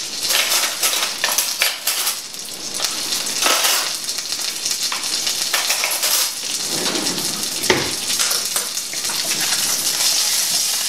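Smoked chicken wings crisping in butter in a hot stainless-steel frying pan: a steady sizzling hiss with scattered sharp pops.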